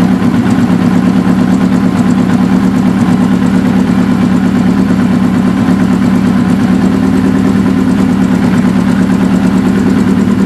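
Suzuki GS550's air-cooled inline-four idling steadily, its idle mixture being set with a Colortune plug fitted in one cylinder.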